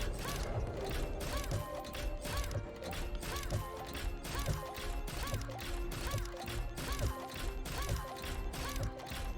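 Money Train 4 online slot's game sound effects: a quick, even run of metallic clunks and clicks as the bonus-round reels spin and land, over the game's soundtrack.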